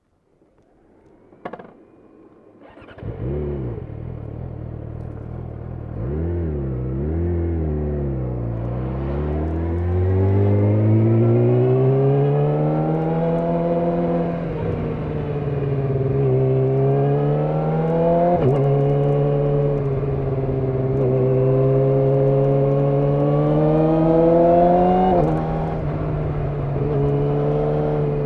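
Yamaha YZF-R6's 600 cc inline-four engine starting about three seconds in after a click, blipped a few times, then pulling away, its pitch climbing and dropping back in steps with throttle and gear changes.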